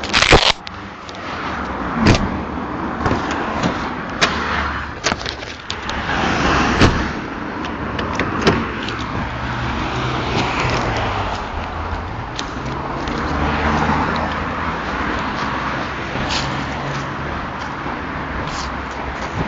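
A car heard from inside the cabin while it is driven: steady road noise under a low engine hum. A handful of sharp knocks and clicks sound through it, the loudest right at the start.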